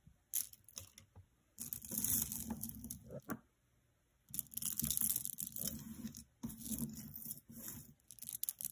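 Hands sorting through a tangle of necklaces, pearl-bead strands and metal chains, on a cloth-covered table: rustling with beads and chain links clicking against each other, in two spells with a short pause between.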